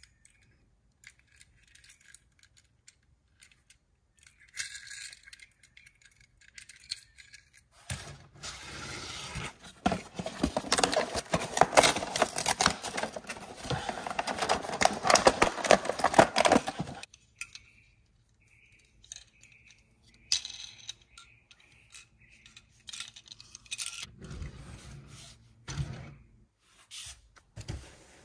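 Cardboard toy packaging being handled, with light clicks and scrapes. About 8 seconds in, the cardboard insert and its tape are torn and pulled apart in a loud, continuous ripping and crackling that lasts about nine seconds. After that come scattered small clicks and knocks.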